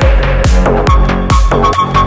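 Electronic dance music, with a kick drum about twice a second and a held synth note that jumps up in pitch about a second in.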